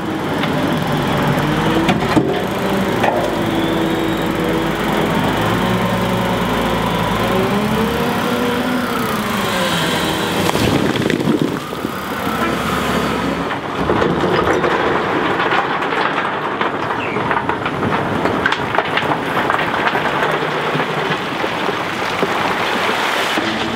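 Volvo L350H wheel loader's diesel engine running and revving under load as it works, with rock clattering and crashing down when the bucket dumps its load partway through.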